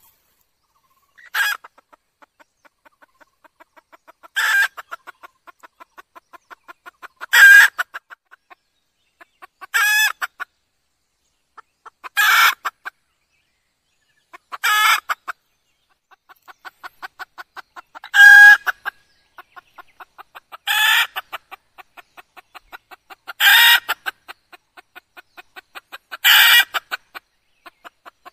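Red junglefowl hen calling: ten short, loud clucking calls about every two and a half to three seconds, with runs of soft, quick clucks between them.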